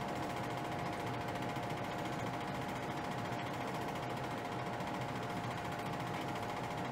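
A steady mechanical whir with a constant hum riding on it, even and unchanging.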